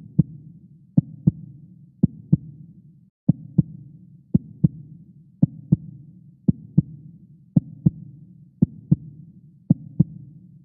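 Heartbeat sound effect: pairs of short low thumps, a lub-dub about once a second, over a low rumbling hum.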